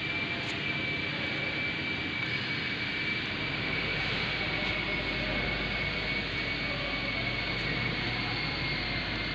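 Steady mechanical hiss with a thin, high-pitched whine, from running machinery.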